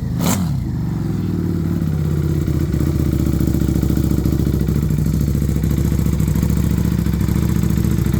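2025 Buell Super Cruiser's 1190 cc V-twin engine: a last throttle blip falling away right at the start, then idling steadily.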